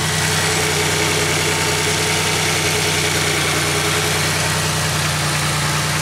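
2001 Pontiac Aztek's 3.4-litre 3400 V6 idling steadily, heard close up in the open engine bay.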